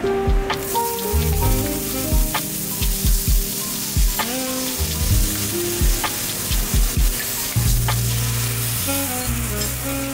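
A thick beef steak sizzling on a hot steel teppanyaki griddle, the hiss picking up about half a second in as the meat is laid down. Background music with a steady beat plays over it.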